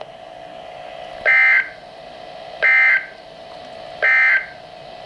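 Emergency Alert System end-of-message data tones: three short, identical buzzing digital bursts about a second and a half apart, marking the end of the weather radio alert. A faint steady hum runs underneath.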